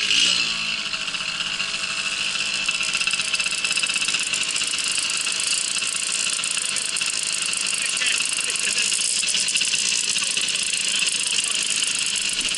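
Babetta moped's small two-stroke engine running steadily under way, with a constant high hiss over it.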